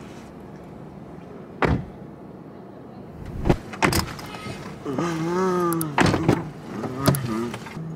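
Car doors and car interior knocking and clicking, about six sharp knocks. A short wavering voice-like sound comes about five seconds in.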